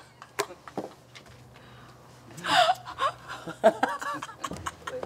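A woman laughing heartily: a high, gasping burst about halfway through, then broken laughter. Two sharp knocks come in the first second.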